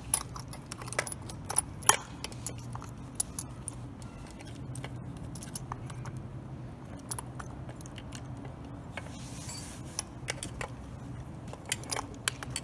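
Saw chain clinking and rattling as it is worked by hand onto the bar and drive sprocket of a Stihl MS 461 chainsaw, engine off: a quick run of sharp metallic clicks in the first few seconds, then scattered clicks over a low steady hum.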